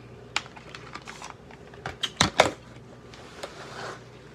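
Close-up mouth sounds of eating watermelon: biting and chewing that make a scatter of sharp, wet, crunchy clicks, loudest in a quick cluster a little past the middle.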